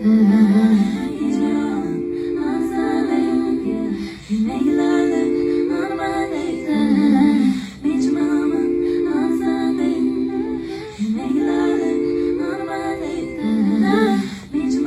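Wordless a cappella female vocals: layered voices humming sustained chords in phrases of about three and a half seconds, each separated by a brief breath-like dip.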